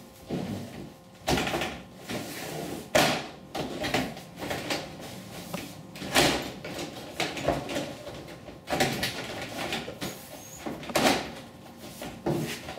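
Vinyl siding panel being pushed and slid into place on the wall: plastic scraping and rattling, with about five sharp knocks as the panel hits and seats against the wall.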